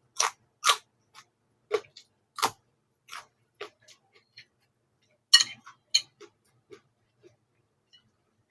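Close-up mukbang eating sounds while chewing fried noodles: irregular sharp mouth clicks and smacks, a few each second at first, with a louder cluster of clicks about five seconds in.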